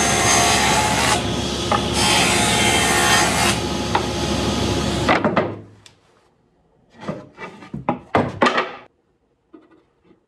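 Table saw cutting a wooden board: a loud, steady cutting noise that stops about five seconds in. A few short knocks and rubs of the board being handled follow.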